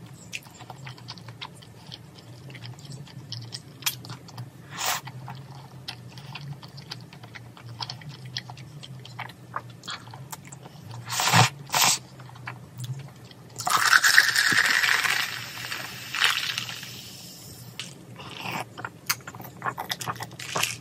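Close-miked mukbang eating sounds: chewing and slurping chewy jjolmyeon noodles in cream sauce, with small wet mouth clicks throughout and one long slurp about two-thirds of the way through.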